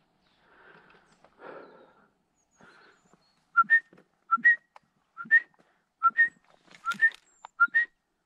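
A short two-note whistle, a lower note then a higher one, repeated six times at a steady pace of about one pair a second, starting about halfway through. Faint rustling comes before it.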